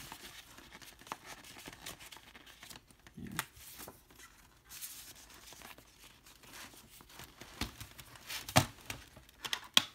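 Hands handling a DVD box set's paper inserts and plastic disc packaging: paper rustling and crinkling with scattered sharp plastic clicks, the loudest clicks coming near the end.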